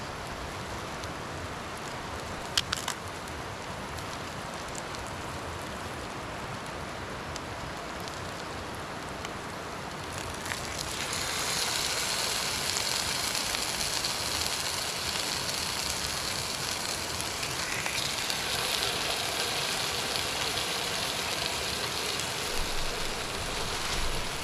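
Marinated tilapia and sautéed vegetables sizzling and crackling in a frying pan. The sizzle grows louder about eleven seconds in.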